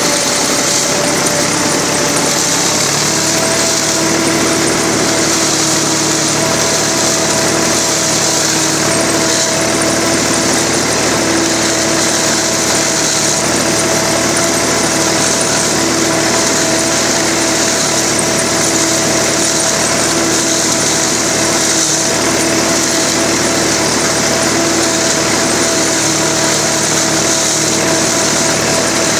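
Zmaj 214 tractor-drawn one-row corn picker working a row of maize: the tractor engine and the picker's gathering and snapping mechanism run together in a steady mechanical din, with a steady hum settling in about three seconds in.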